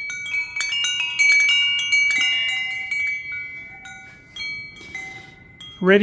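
Tubular wind chime played by swinging its wind catcher by hand, so the center striker disc hits the tubes: a cluster of clear, overlapping ringing notes, struck many times in quick succession over the first two seconds, then a few softer strikes, each note ringing on and fading slowly.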